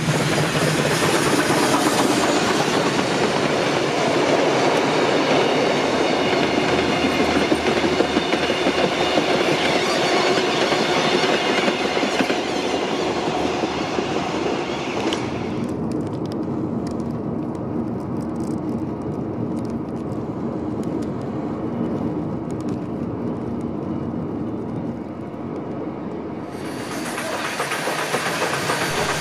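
BB18¼ class steam locomotive 1089 and its carriages passing close by, a loud running clatter of wheels over the rails. About halfway through, the sound drops to a quieter rumble as the train draws away. Near the end the loud train noise starts again abruptly, as the locomotive runs through a station.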